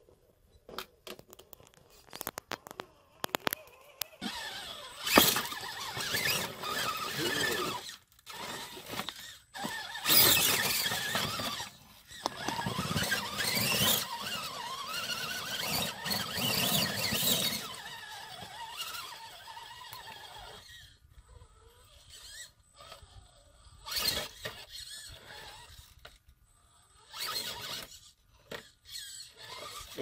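A 1/10-scale RC rock crawler's electric motor and geared drivetrain whining in bursts as it crawls over rocks, loudest in the middle stretch. There are a few sharp clicks and knocks near the start.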